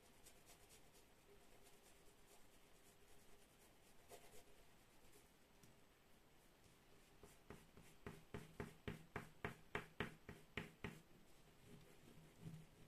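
Crayon scribbling back and forth on paper while colouring in, faint at first, then a clear run of regular scratching strokes at about four a second past the middle.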